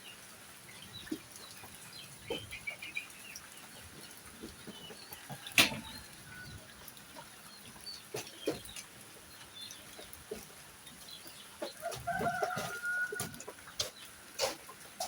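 Poultry clucking and calling now and then, with scattered taps and clicks; a sharp click about five and a half seconds in, and a busier run of calls near the end.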